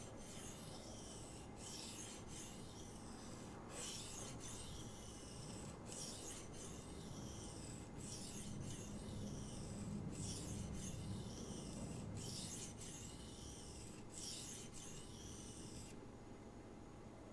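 S30V steel knife blade being stroked back and forth on a Naniwa Diamond 400 whetstone: a steady run of hissing scrapes, about one stroke a second, as the edge is ground to raise a burr. The strokes stop about a second before the end.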